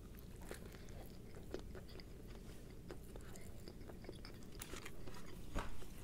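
A person biting into and chewing a deep-fried battered chicken ball, with faint crunches and scattered mouth clicks. It gets a little louder near the end.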